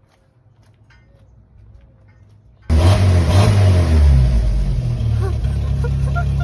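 A few faint clinks, then about two and a half seconds in the Jeep Wrangler YJ's 2.5-litre four-cylinder engine comes in loud, revs briefly and settles to a steady run through its newly replaced exhaust.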